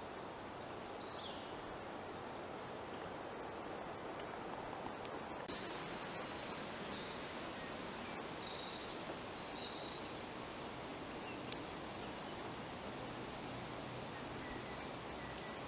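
Woodland ambience: a steady background hiss, with small birds calling now and then in short high chirps and trills above it.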